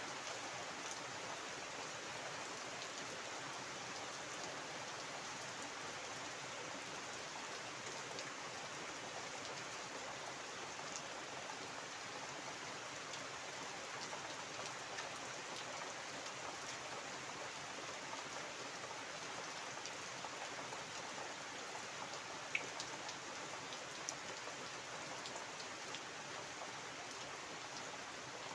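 Steady heavy rain falling on a waterlogged garden and puddles: an even hiss of rain with scattered sharper drop ticks, and one louder tick about three-quarters of the way through.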